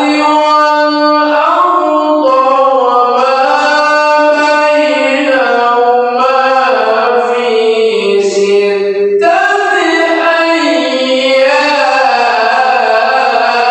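Quran recited in melodic tilawah style by a qari: one voice holding long, ornamented notes that slide between pitches, with brief pauses for breath.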